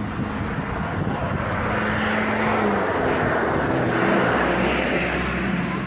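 A motor vehicle's engine runs close by, its pitch shifting now and then, over a steady rush of noise from a bicycle speeding downhill.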